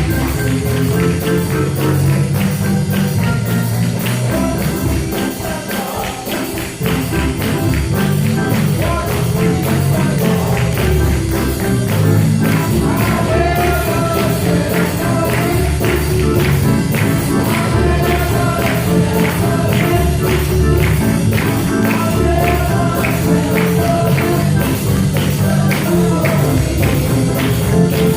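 Upbeat church band music with a strong bass line and a steady, quick percussion beat.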